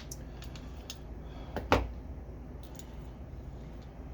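A few light clicks and one sharper clack about one and a half seconds in: small metal parts from a torque wrench's handle being handled and set down.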